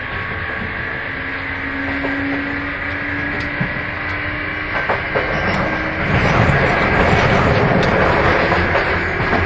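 Sotetsu 8000 series motor car MoHa 8107 running, heard from inside the car. A steady whine rises slightly in pitch, the car's known 'jet' abnormal noise, over wheel-and-rail rumble with a few rail-joint clicks. The rumble grows louder about six seconds in.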